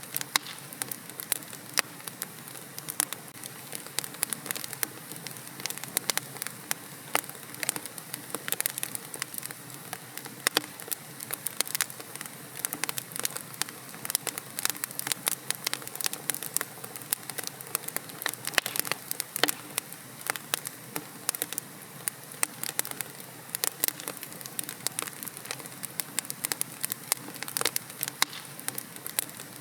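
Wood fire burning in a fireplace: a steady soft hiss with frequent irregular sharp crackles and pops.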